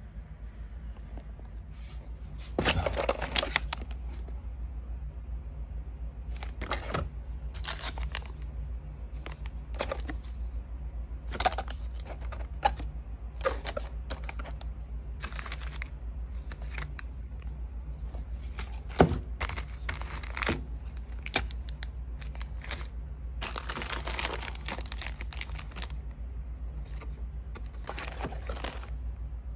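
Plastic packaging (sealed test pouches and bags of pipette tips) crinkling and rustling in repeated short bursts as it is handled, the longest bursts about three seconds in and about twenty-four seconds in. A steady low hum runs underneath.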